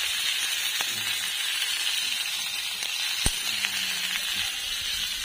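Two small trevally sizzling on a hot ridged grill pan over a portable gas stove, now cooked through: a steady hiss with scattered crackles and one sharp pop a little past halfway.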